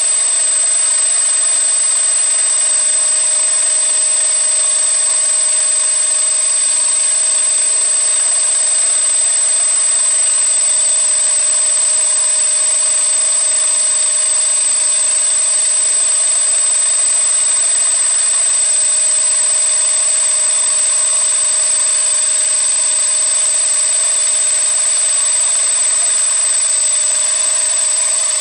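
CNC machine running steadily, a constant high whine over even machining noise.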